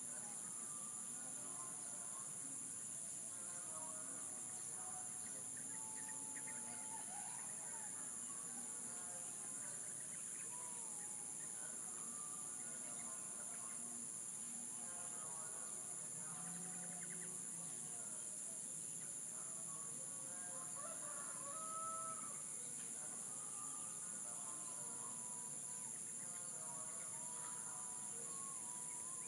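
Chickens and a rooster calling, with many short bird chirps scattered throughout, over a steady high-pitched drone of insects.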